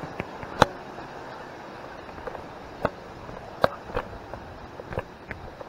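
Footsteps of a person walking a trail: a few scattered, irregular sharp knocks over a steady background rush.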